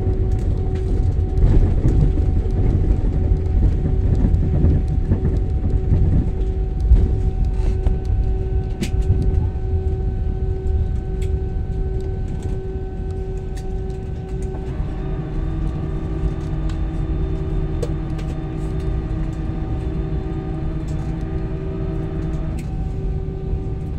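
Airliner cabin noise as the plane rolls along the runway after touchdown and slows: a heavy rumble from the wheels and jet engines under steady engine tones. The rumble eases about halfway through, leaving a steadier engine hum with several humming tones, with a few light rattles and clicks.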